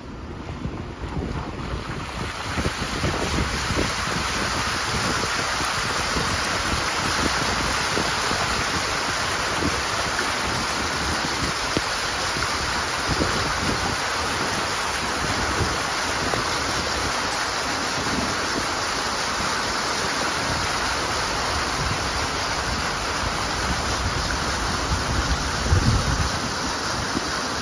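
Steady rush of splashing floodwater, coming up about two seconds in and then holding, with wind buffeting the microphone in low, uneven gusts.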